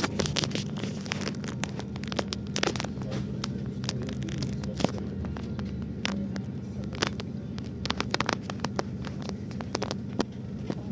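A steady low engine hum, overlaid with frequent sharp clicks and crackles.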